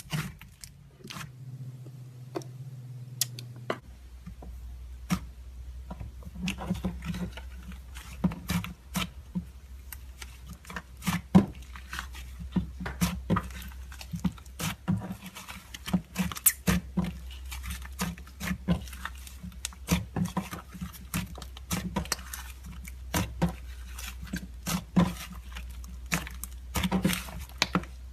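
Butter slime being pressed and poked by hand, giving irregular sticky clicks and small crackling pops.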